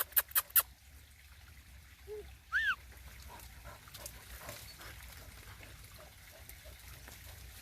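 Dogs digging at a burrow, scratching and throwing loose earth, with faint scattered patter of falling soil. A quick run of sharp clicks comes at the start, and a short high squeak rises and falls about two and a half seconds in.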